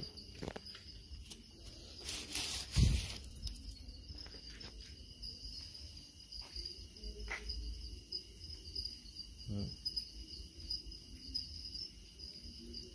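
Many farmed crickets chirping in a steady, high-pitched chorus. About two to three seconds in comes a short rustling noise ending in a knock.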